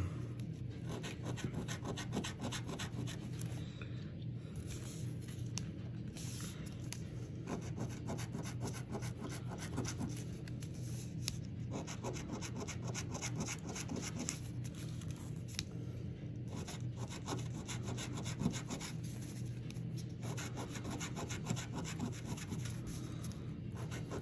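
A coin scraping the latex coating off a lottery scratch-off ticket: fast, repeated scratching strokes in runs, with short pauses every few seconds.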